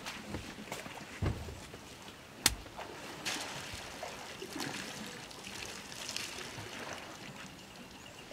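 Elephants drinking: water splashing and trickling in irregular bursts, with a low thump a little over a second in and a single sharp click about two and a half seconds in.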